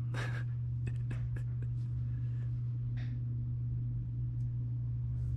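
Steady low hum with a few faint, soft rustles and clicks.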